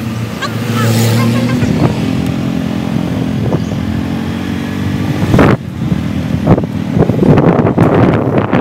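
Motorcycle engine running steadily while riding along a street, with wind rushing and buffeting over the microphone that takes over in the second half.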